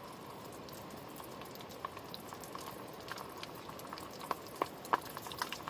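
Breaded squid deep-frying in hot oil: a steady bubbling hiss with sharp pops and spits of oil, which come more often and louder over the last couple of seconds.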